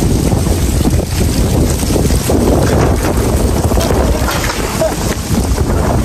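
Strong, gusty wind buffeting the microphone: a continuous low rumble that swells and eases.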